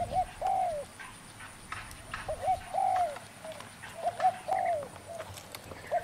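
A caged decoy dove cooing: a repeated phrase of a couple of short coos followed by a longer drawn-out coo, about every two seconds.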